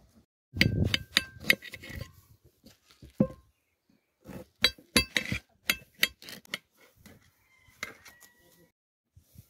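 Knife blade clinking and tapping against a ceramic plate while slicing watermelon: a series of sharp clinks, some with a brief ring from the plate, coming in two clusters with a last clink near the end.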